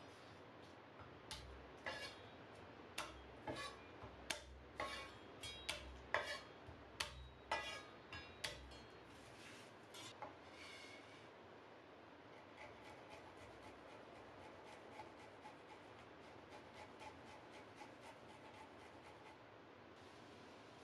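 Garlic cloves crushed and cut with a chef's knife on a wooden cutting board: a series of sharp knocks over the first nine seconds or so. Then garlic is grated on a small metal hand grater, a faint, quick scraping.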